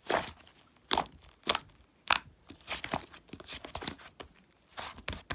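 Fluffy slime being squished, stretched and pressed by hand, giving irregular crackly, tearing pops and squelches.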